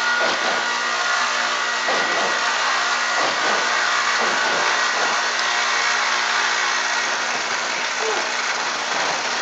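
Steady machine hum with a few held whining tones, and a handful of faint soft thumps.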